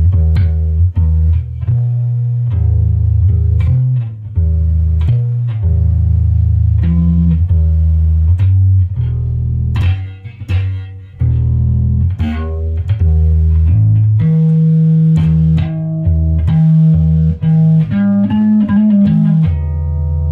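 Rickenbacker 4003S electric bass played solo, a line of sustained notes with a run of higher notes near the end. The owner says the bass's neck is bowed from swings in humidity.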